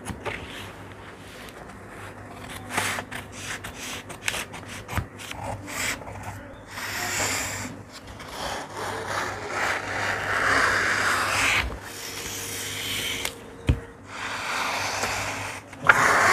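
Tailor's shears cutting through a paper pattern sheet: irregular snips and scratchy rustling as the blades work along the marked line and the paper is slid and turned, with one sharp click late on.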